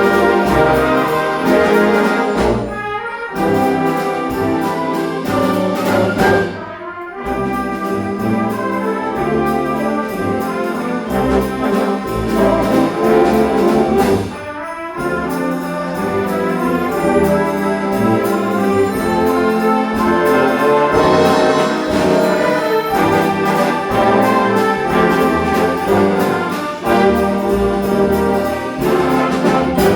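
Community concert band playing live, brass-led with trumpets and trombones carrying sustained chords in phrases with short breaths between them.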